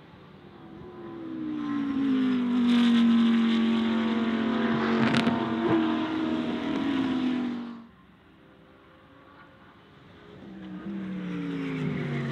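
GT race car passing at speed: the engine note builds, runs loud at high revs and falls in pitch as the car goes by, then cuts off suddenly near eight seconds. A second car is heard approaching near the end.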